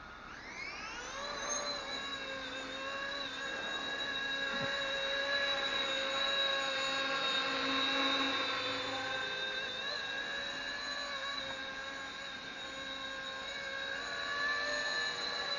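Small RC ERA C190 H145 model helicopter's motor and rotors spooling up, the whine rising quickly in pitch over the first second or so. It then settles into a steady high whine with several tones that grows slightly louder as it flies.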